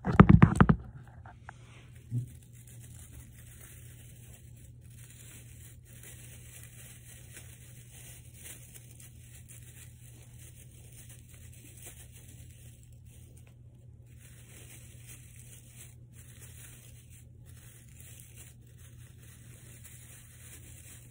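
Phone being handled and set down with a loud rustle and knock, then a single knock about two seconds in. After that, faint, uneven rustling and scratching, like the plastic needles of an artificial Christmas tree being brushed and its branches shaped.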